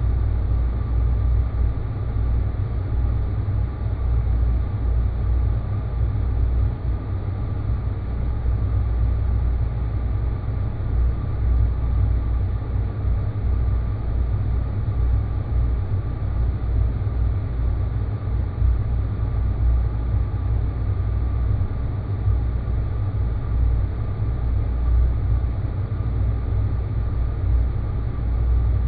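Space-planet ambience sound effect: a steady, deep rumbling drone with a faint thin tone held above it, unchanging in character.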